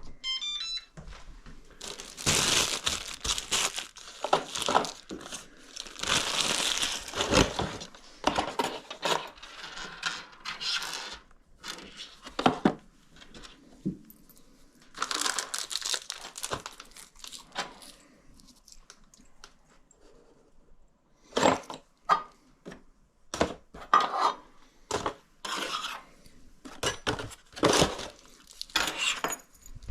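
Packaging crinkling and tearing in irregular stretches, mixed with clicks and knocks from handling hardware, while a new electronic deadbolt is unpacked and fitted. Right at the start there is a quick run of short beeps.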